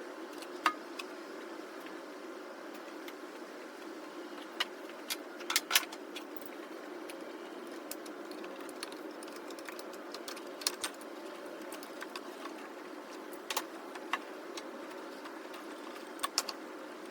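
Metal hand tools clinking and clicking during engine-bay work, with scattered single sharp clicks and a short cluster of them about five to six seconds in, over a steady low hum.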